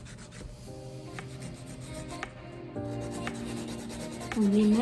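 Hand nail file rasping back and forth across an acrylic nail in quick, even strokes. Background music with held notes comes in about a second in, and a singing voice rises over it near the end.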